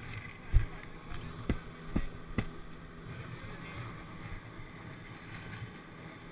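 Four sharp knocks in the first two and a half seconds, the first the loudest, over a steady low hum and wind noise on the microphone.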